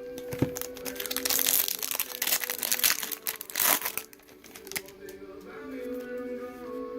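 Foil trading-card pack wrapper crinkling, a dense rustle from about one second in to about four seconds in.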